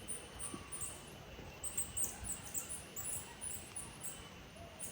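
South American coati (Nasua nasua) pup giving very high-pitched chirping contact calls to its mother, short squeaks several a second in irregular clusters.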